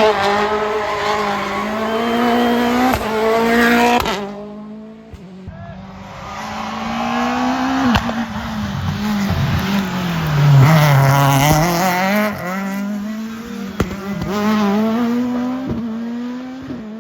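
Rally car engines at full throttle, the pitch climbing through each gear and dropping at every shift, with some tyre squeal.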